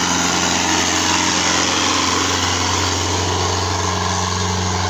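Ford 3610 tractor's three-cylinder engine running steadily under load as it pulls a heavily loaded sugarcane trailer, a constant low hum with no change in pitch.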